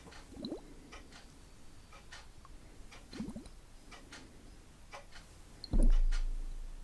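Close-miked ASMR trigger sounds: light clicks and taps with short wet, squishy blips. A dull low thump comes about six seconds in and is the loudest sound.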